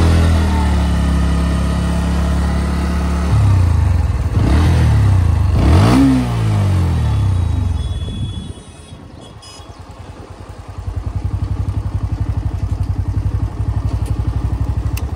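Bajaj Pulsar NS125's single-cylinder engine under way, its revs climbing and stepping through gear changes and peaking about six seconds in. It then eases off to a quieter idle, and from about eleven seconds it idles louder with an even, regular pulse.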